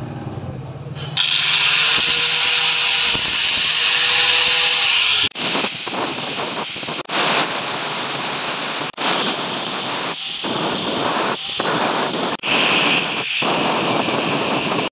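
Angle grinder with an abrasive flap disc grinding the steel of a knife blank made from an old file: a loud, harsh grinding hiss that gets much louder about a second in and breaks off abruptly several times.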